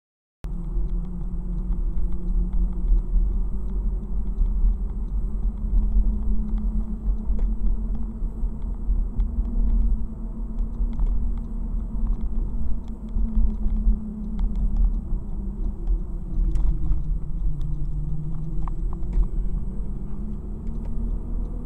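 Engine and tyre-on-road noise inside a moving car's cabin: a steady low rumble with the engine note drifting up and down as the car drives. It cuts in abruptly about half a second in.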